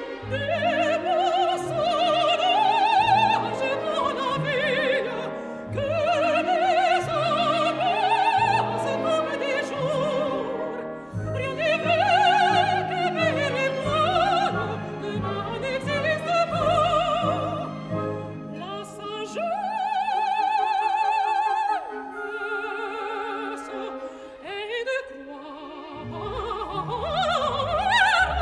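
Operatic singing with vibrato over an orchestra playing sustained chords. The bass of the orchestra drops out for a few seconds near the end, then returns.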